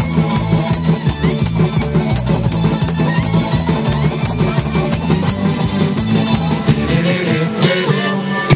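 Live rock band playing: electric guitar over a driving beat, with a tambourine shaken along. The low end and drums thin out near the end.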